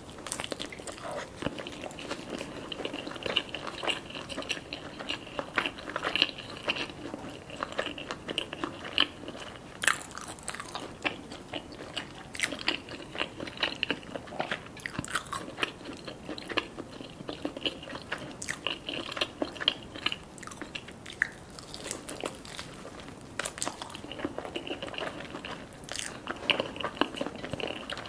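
Close-miked eating: repeated biting, crunching and wet chewing, with many sharp clicks and crackles spread throughout.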